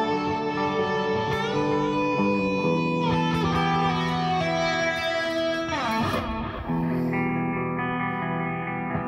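Solid-body electric guitar played through an amp: held, ringing chords that change every second or two, with a sliding, bending run about six seconds in.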